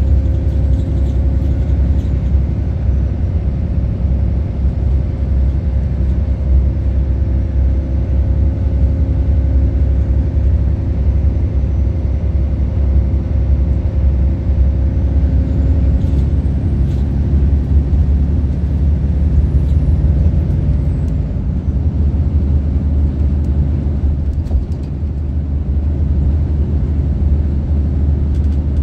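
Cabin noise inside a Volvo 8500 B12BLE city bus cruising at motorway speed: a steady low rumble from the engine and tyres on the road.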